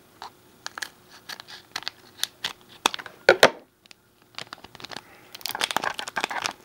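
Plastic trading-card booster-pack wrapper crinkling and crackling as it is pulled from the box and handled, in short sharp rustles. A louder crackle comes about three seconds in, and the crinkling grows denser near the end.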